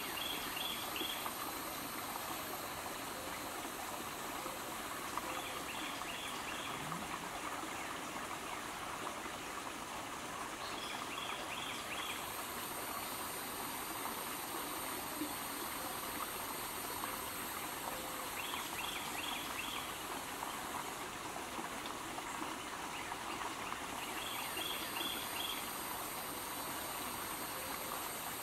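Steady rush of a running stream, with a short call of four quick high notes repeating about every six seconds and a faint, very high whine that comes and goes.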